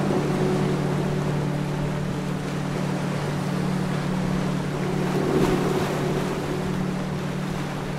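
Ocean surf: waves breaking and washing up the shore as a steady rushing noise.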